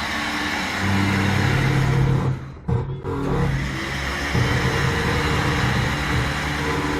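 A vehicle engine running with a steady hum. It picks up slightly about a second in and cuts out briefly just before the third second.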